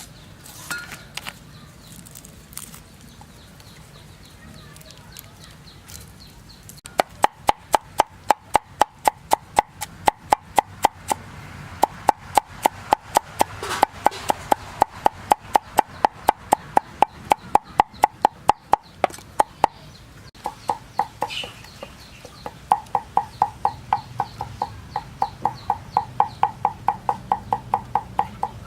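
A knife chopping rapidly on a wooden cutting board, a steady run of sharp knocks about four a second, with two short pauses in the second half.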